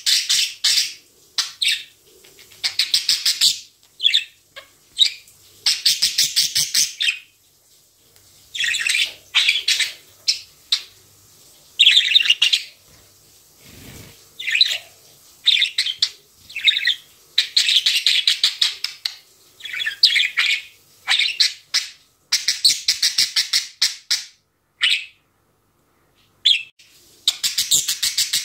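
Budgerigar warbling: phrase after phrase of rapid, chattering clicks and chirps, broken by short pauses.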